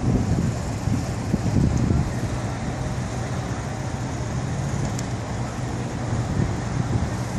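Steady low rumble of street traffic, with some wind buffeting the microphone.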